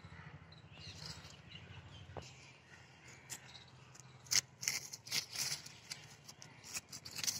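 Short crisp rustles and clicks of leaves, irregular and more frequent from about three seconds in, over a low steady hum.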